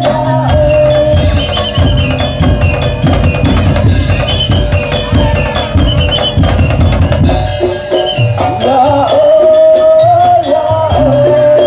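Daul percussion ensemble playing loud music: a wavering melody line over the drums gives way just after the start to a dense stretch of drumming, and the melody comes back about two-thirds of the way through over the drums.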